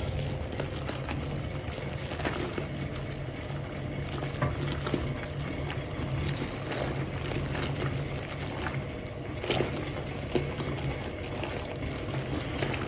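Water boiling and bubbling in a Hoovermatic twin-tub washing machine's wash tub during a boil wash of towels, with a steady low hum underneath and scattered short pops.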